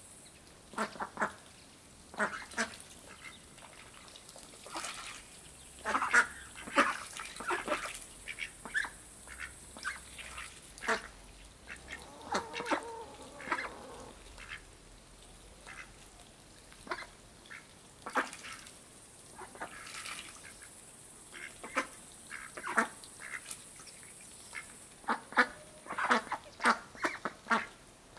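Indian Runner ducks quacking in short, irregular calls while feeding.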